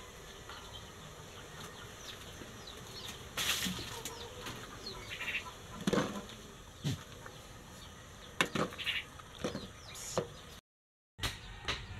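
Metal ladle stirring leaves and mushrooms in a steel pot of broth, with scattered short clinks and scrapes against the pot, most of them in the second half. Chickens cluck faintly in the background.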